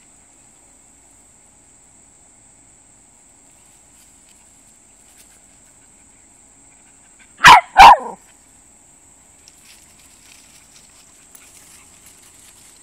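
A dog barks twice in quick succession, two short, loud barks a little over halfway through.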